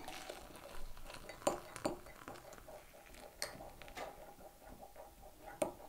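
Teaspoon clinking lightly against a glass mug while stirring hot chocolate, a handful of irregular clinks.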